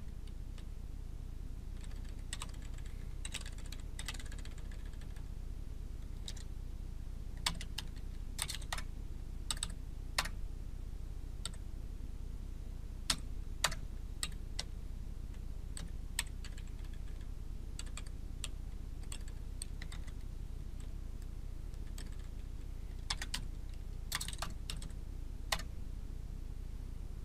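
Computer keyboard typing: scattered keystrokes in short irregular clusters, over a steady low hum.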